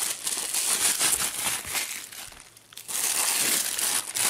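Packaging around a camera kit lens crinkling and rustling as it is unwrapped by hand, with a brief lull a little past the middle.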